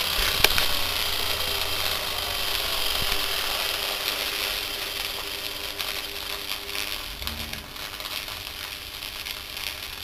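Washing-machine universal motor running at high speed on a microwave oven transformer's output, its brushes sparking and burning at the commutator, giving a steady rattling hiss that slowly gets quieter. A single click comes about half a second in.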